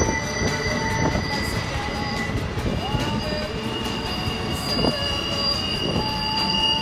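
Union Pacific double-stack well cars rolling past, their steel wheels squealing steadily in several high tones over a low rumble, with a few sharp knocks from the wheels and couplings.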